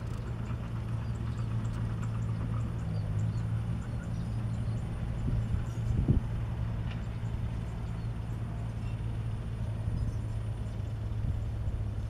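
Heavy diesel engine of construction machinery running steadily at a constant low speed, with a brief thump about six seconds in.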